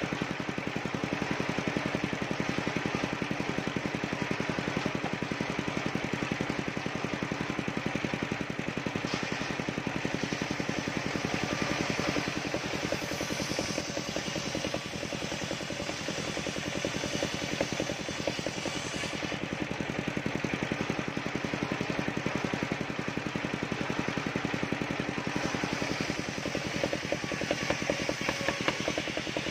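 Large engine-driven table circular saw running steadily while ripping a sengon (albasia) board lengthwise, the engine's steady running note under the hiss of the blade in the wood.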